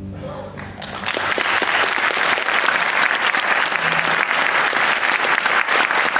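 The song's last held chord fades away, and about a second in, audience applause breaks out and carries on steadily.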